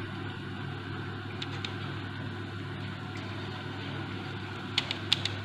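A steady low machine hum, with a few light clicks about a second and a half in and again near the end.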